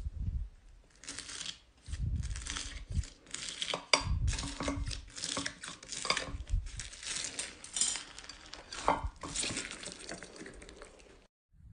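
Foam-bead slime (floam) being cut with scissors and squeezed, giving a dense, irregular crackling with many crisp clicks and pops, stopping abruptly near the end.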